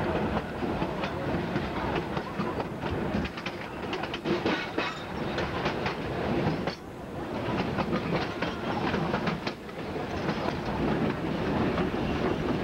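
Narrow-gauge passenger coach riding along, its wheels rumbling and clicking over the rail joints. A cluster of sharp clicks between about three and six seconds in marks the wheels crossing a switch.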